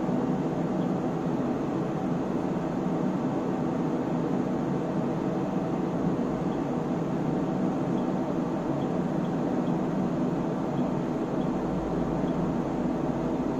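Steady whir of cooling fans in bench test electronics, the Elgar SW3500A AC source among them, running at constant speed, with a few faint short ticks.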